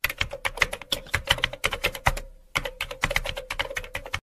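Keyboard typing sound effect: rapid key clicks, with a short pause about halfway through.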